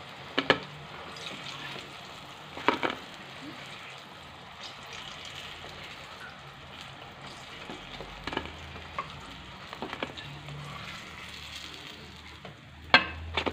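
Eggplant slices sizzling steadily in hot oil in a nonstick wok as a slotted spatula lifts them out, with a few sharp clicks of the spatula on the pan, the loudest near the end.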